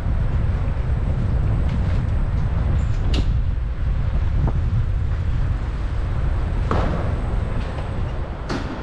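Steady low rumble of wind on the microphone and road noise from a moving electric scooter, broken by three short sharp knocks or rattles.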